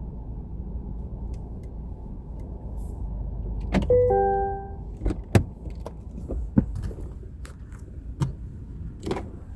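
Steady low rumble of a car, then about four seconds in a loud click and a brief electronic chime of a few short tones. Scattered sharp clicks and knocks follow for the rest of the time.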